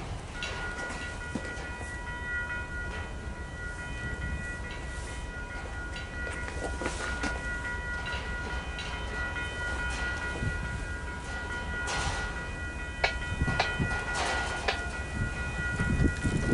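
VIA Rail passenger train led by a P42DC diesel locomotive pulling into the station, with rumble and sharp clicks from the wheels over the rails. A steady high squeal of several tones is held throughout.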